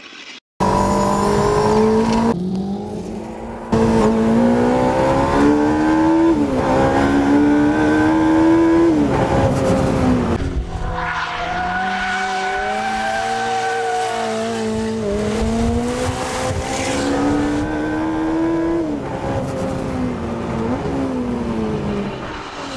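Jaguar C-X75 prototype's turbocharged and supercharged 1.6-litre four-cylinder engine revving hard through the gears, its pitch climbing and then dropping sharply at each upshift, with tyres squealing as the car drifts.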